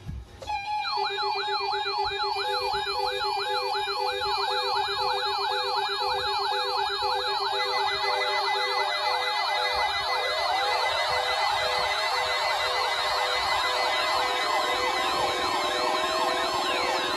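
Several electronic siren and alarm tones sounding together, coming in one after another. A fast yelp sweeps up and down about four times a second over a steady tone and an on-off beep, and more wailing sweeps join in about halfway through.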